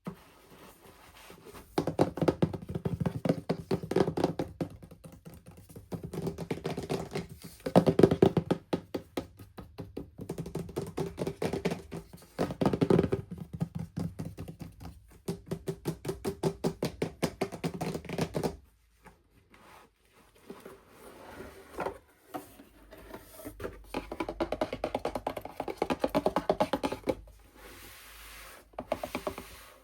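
Hands unboxing miniature toys: rapid clicking, tapping and rustling of packaging in long runs. There is a quieter lull partway through before the handling picks up again.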